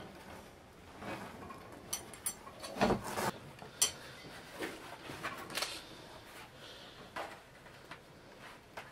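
Woven split-bamboo winnowing basket rustling and creaking as it is handled and turned, with scattered sharp clicks and knocks of the bamboo, the loudest about three seconds in.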